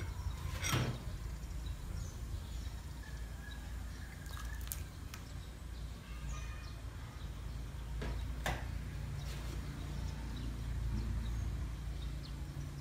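A few sharp clicks and knocks of small bowls and a steel pot being handled while cooking, over a steady low rumble, with faint bird chirps in the background.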